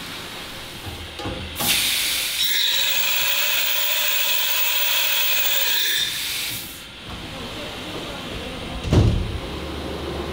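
CNC machining centre letting out a loud, steady spray-like hiss for about five seconds, with a high whine running through it. About nine seconds in comes a single knock, followed by a low steady hum.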